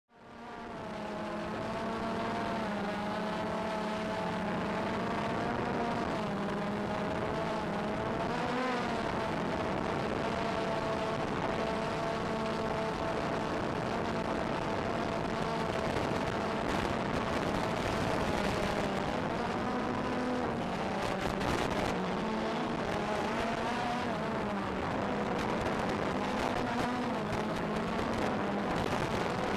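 Electric motors and propellers of an FPV drone humming in flight, the pitch wavering up and down with the throttle. The sound fades in over the first second, and scratchy crackle joins it in the second half.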